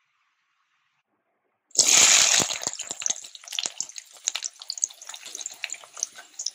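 Near silence, then a little under two seconds in, chopped onions drop into hot oil in a kadai and sizzle loudly at once. The sizzle settles into a steady crackling fry.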